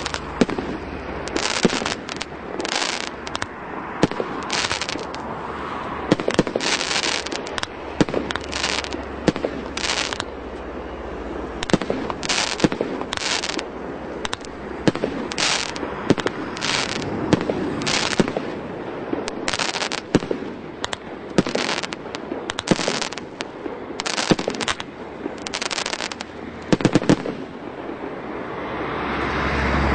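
A CGFP-503 multi-shot consumer fireworks battery firing in sequence: sharp bangs of shots and aerial bursts at roughly one a second, sometimes two in quick succession.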